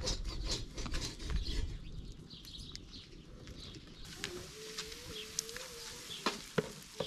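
Light scrapes and clicks of a metal spatula and metal pots against an iron griddle (saj) over a wood fire. In the second half there is a fine hiss with a faint wavering tone, and a few sharp clinks near the end.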